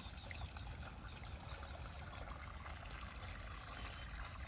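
Irrigation water running steadily from a pipe into a vegetable bed, a faint trickling flow over a low rumble.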